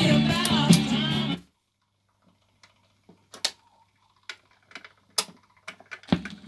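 A rock-and-roll 45 single playing through a music centre's own speakers stops abruptly about a second and a half in. Then come scattered clicks and clunks of a BSR record changer cycling as its tone arm lifts and swings back, with a louder knock near the end, over a faint steady hum.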